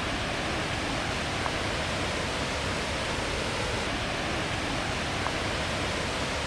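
A large waterfall crashing down close by: a steady, loud rush of falling water.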